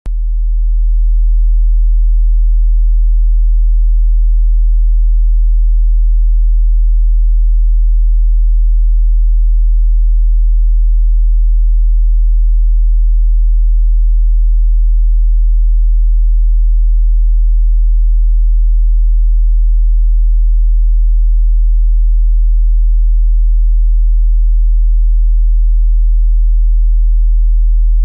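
A single steady, very low-pitched electronic sine tone that fades in over about a second and then holds unchanged: the attention signal of an emergency broadcast.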